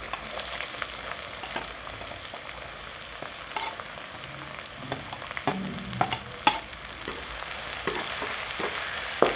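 Sliced onions sizzling in hot mustard oil in a metal kadhai. The hiss starts suddenly as they go in and keeps on steadily. A metal spoon scrapes and clinks against the plate and pan a number of times as the onions are pushed in and stirred.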